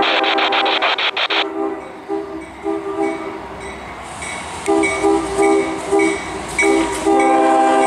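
A CSX freight locomotive's multi-chime air horn played as a horn show. A long blast is followed by a rapid, rhythmic string of short toots and then another long blast near the end. During the first blast, loud rushing noise with quick, even clatter from the passing train comes through.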